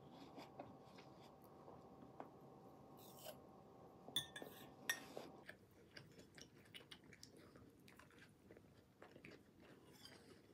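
Faint eating sounds: quiet chewing with light clicks of a fork and dishes, two sharper clicks about halfway through. A faint steady hum underneath stops about halfway through.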